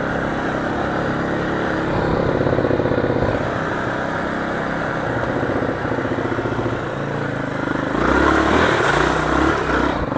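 Motorcycle engine running in second gear on a wet dirt trail, its pitch shifting with the throttle. About eight seconds in it gets louder, with a rush of noise over the engine.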